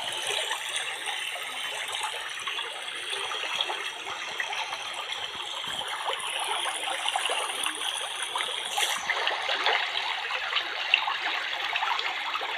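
Steady rushing of water, waves washing on a sandy shore, with no distinct animal calls.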